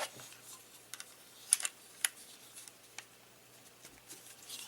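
Hard plastic parts of a Transformers action figure clicking and tapping as a gun is pegged into the arm: a handful of sharp clicks, the loudest about a second and a half in.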